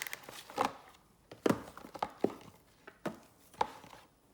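Small cardboard boxes of trading cards being handled and set down: a handful of separate soft knocks and thumps, several a second at times.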